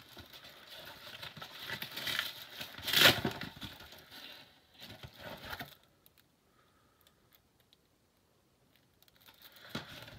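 A shipping package being torn open and its wrapping crinkled by hand, with one louder tear about three seconds in. The handling stops for a few seconds in the second half and starts again near the end.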